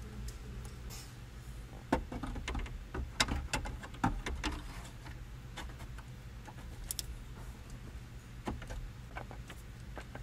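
Sharp plastic clicks and knocks from handling an aftermarket car radio and fitting it into a truck's dash opening, in a busy run starting about two seconds in and a few more scattered later, over a steady low hum.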